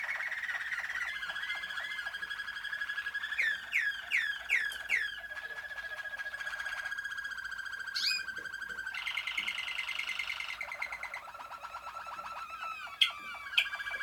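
Malinois (Waterslager) song canaries singing a continuous run of rolling trills and repeated notes. A row of four loud sweeping notes comes a few seconds in, and sharp, loud single notes come near the end.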